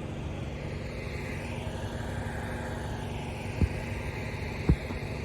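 Soft wash rig's pump motor running steadily while spraying cleaning solution onto a roof, with two short thumps about three and a half and four and a half seconds in.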